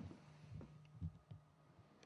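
Near silence: stage room tone with a faint steady low hum and a few soft, dull knocks in the first second and a half.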